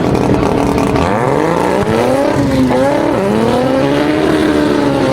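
Car engine revving hard: its pitch climbs from about a second in, drops briefly around three seconds in, then climbs again and holds high.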